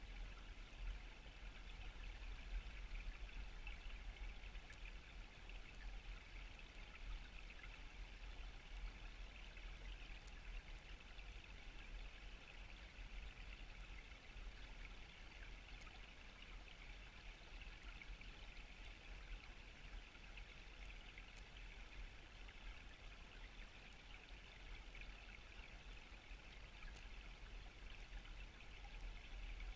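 Steady rush of flowing river water, heard underwater through a submerged camera's housing, with a low rumble beneath it.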